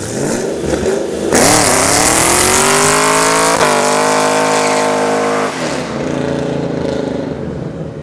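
Chevrolet Camaro engine revving hard in a burnout, with the tyres spinning. The revs climb about a second and a half in, hold high and steady, then drop off after about five and a half seconds.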